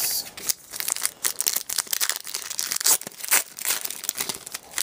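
Rapid crackling and rustling of hockey cards and their foil pack wrapper being handled, a string of short sharp crinkles.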